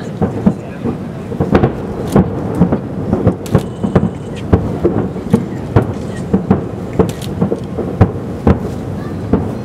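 Aerial firework shells exploding at a distance, a dense run of low bangs about two a second that echo into a continuous rumble.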